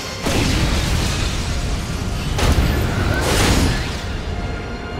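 Two anime explosion sound effects, big booming blasts about two seconds apart, each dying away over a second, from a giant robot's finishing attack striking home, over dramatic background music.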